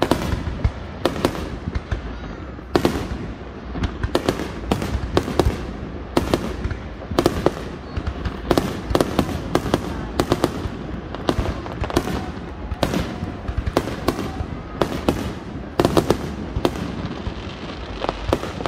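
Aerial fireworks shells bursting in quick succession: a rapid string of booms, often two or three a second, over a continuous low rumble.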